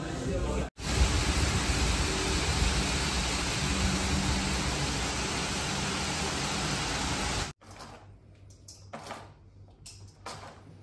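A steady rushing noise with a faint low hum in it. It cuts off suddenly about seven and a half seconds in, leaving a much quieter background with a few faint knocks.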